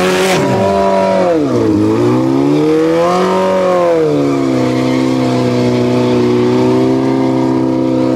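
Motorcycle engine revving at a street race. Its pitch drops, climbs and falls again, then holds steady at a constant speed for the last few seconds.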